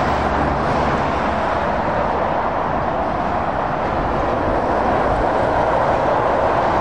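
Motorway traffic passing at speed: a steady roar of tyres on the road with the drone of lorry engines underneath.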